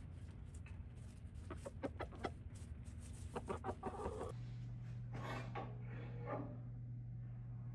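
Chickens clucking in short calls, in several clusters.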